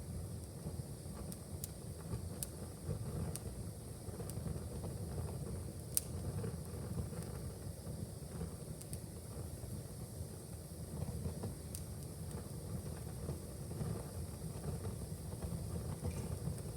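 Wood fire in a fireplace crackling: scattered sharp pops over a steady low rumble, with one louder pop about six seconds in.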